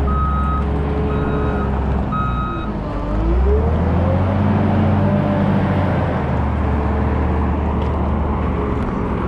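Komatsu WA320 wheel loader's diesel engine running close by, its reversing alarm beeping three times in the first few seconds. About three seconds in, the engine revs up under load, puffing black smoke, and then holds steady.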